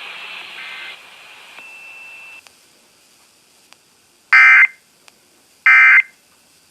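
Emergency Alert System end-of-message signal: short, loud bursts of screechy digital data tone, sent twice about a second and a half apart, the first about four seconds in. They mark the end of the test broadcast. A faint fading hiss comes before them.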